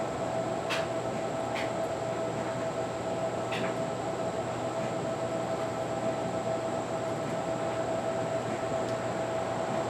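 Steady mechanical hum with a constant tone, broken by three faint clicks in the first four seconds.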